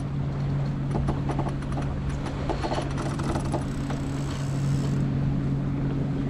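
X-99 sailboat under way in light wind: steady wind and water noise with irregular light knocks and clicks, over a steady low hum.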